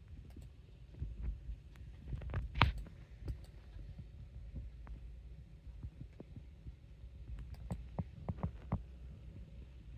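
Low rumble of a handheld camera being moved about, with scattered light clicks and knocks: the loudest about two and a half seconds in, and a quick cluster near the end.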